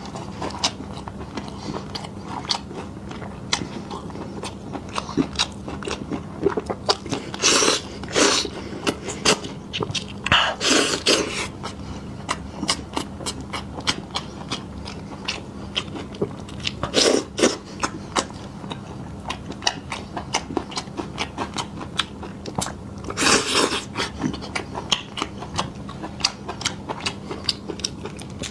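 Close-miked eating: a person chewing and biting meat, with a dense run of small wet clicks and a few louder bites or slurps. A faint steady hum runs underneath.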